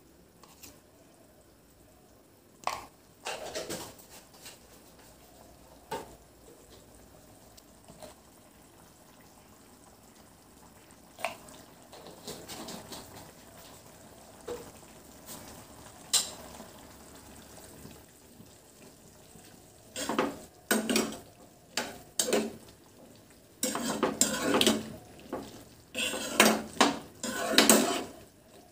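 A few scattered clinks, then from about twenty seconds in a metal spoon stirring chickpea and potato curry in a black kadai, scraping and knocking against the pan in quick, repeated strokes.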